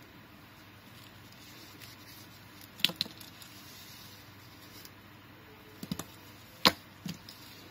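Braided cord straps being handled and laid down on a wooden tabletop: a few short, sharp knocks and taps, two close together about three seconds in and the loudest a little after two-thirds of the way through, over a quiet background.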